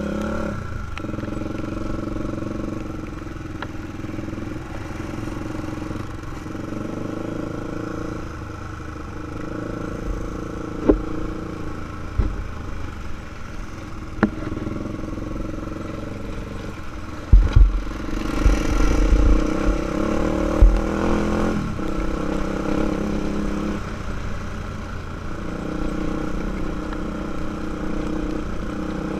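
A 2005 Honda 400EX quad's single-cylinder four-stroke engine running under way, its revs rising and falling, with a few sharp knocks. A little past the middle comes a stretch of heavy low thumps and rushing noise.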